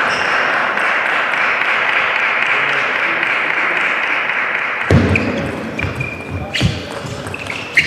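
Steady background hiss, then from about five seconds in a table tennis rally: a run of sharp pings as the plastic ball strikes bats and the table, roughly twice a second.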